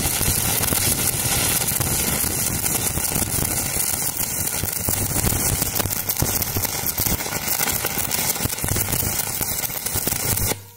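Stick-welding arc from a Hotbox TIG-200 inverter burning a 3/32-inch 7018 rod at about 120 amps: a steady, dense crackle and sizzle that cuts off suddenly near the end as the arc is broken.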